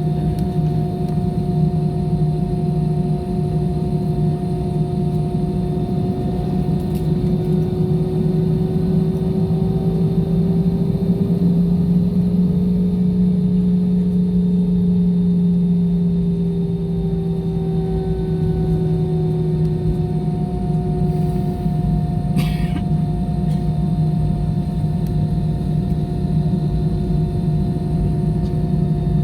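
Airliner engines heard from inside the cabin, running with a steady droning hum over rushing noise. The hum rises slightly in pitch and loudness partway through, then settles back. There is a short click about twenty-two seconds in.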